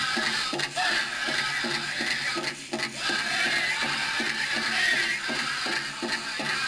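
Powwow drum struck in a steady beat, about three beats a second, under high singing, with the metal cones of jingle dresses rattling.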